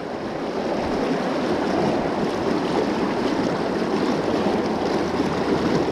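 Fast, shallow river current rushing over rocks in a riffle, a steady, even rush of water around the wader.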